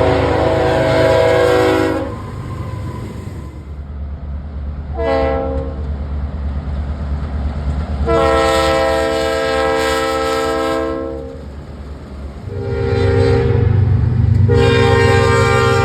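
Locomotive horn sounding warning blasts for a road crossing: a long blast ending about two seconds in, a short one near five seconds, a long one around eight to eleven seconds, and another that starts near thirteen seconds and swells near the end. A steady low rumble of the train runs beneath the blasts.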